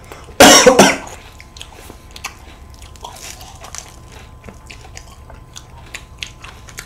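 A loud, crisp crunch as a bite is taken from a tiramisu World Cone ice cream cone about half a second in, then quieter crunchy chewing with small scattered clicks.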